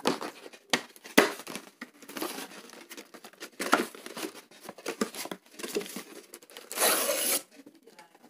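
Cardboard firecracker box being opened and handled: crinkling and tearing of card and paper with a few sharp knocks, and a longer tearing, scraping stretch near the end as the 12-shot cake is slid out of its box.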